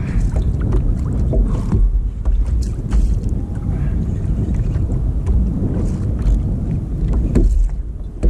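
Wind buffeting the microphone and choppy sea water slapping against a plastic sit-on-top kayak hull, a constant low rumble with scattered small clicks and splashes.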